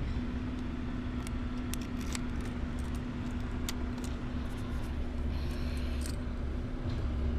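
Car engine running, heard from inside the cabin as a low rumble with a steady hum, with scattered light clicks and jingling like keys.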